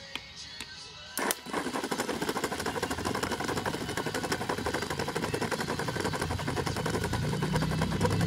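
1988 Mitsubishi Lancer starter motor run on the bench: a solenoid clunk about a second in throws the pinion gear forward, then the motor spins with a fast, even rattling buzz that grows steadily louder.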